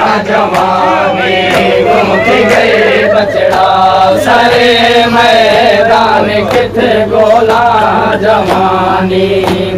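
Men's voices chanting a Siraiki noha, a mourning lament, in a drawn-out melody. Sharp slaps about twice a second keep the beat, the rhythm of chest-beating (matam).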